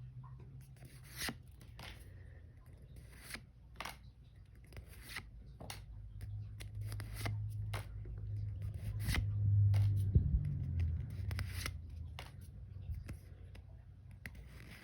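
Pokémon trading cards being handled and flipped one after another from a freshly opened booster pack: a run of short, irregular card clicks and rustles. A low hum swells up in the middle.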